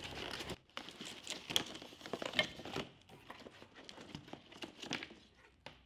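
Rustling, crinkling and light knocks of cardboard packaging as an LED driver and its cables are handled and lifted out of a box. The handling noises thin out toward the end.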